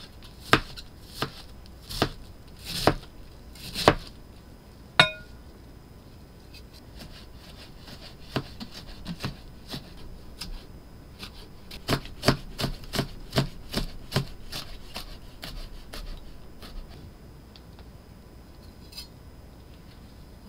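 Kitchen knife chopping cabbage on a cutting board: a few loud, sharp knocks about a second apart, then a single ringing clink about five seconds in. After that come quicker, lighter knife strokes as cucumber and carrot are cut into thin strips, thinning out near the end.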